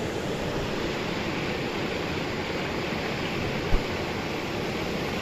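Steady rush of river water flowing over rocks. A single brief low thump comes a little over halfway through.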